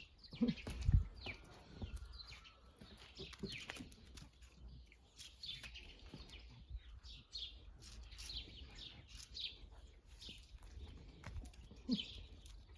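Small birds chirping and twittering, many short high chirps in quick succession throughout. A few low thumps about a second in.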